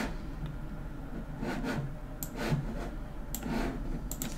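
A few faint, sharp computer mouse clicks, spaced a second or so apart, over a low steady room hum.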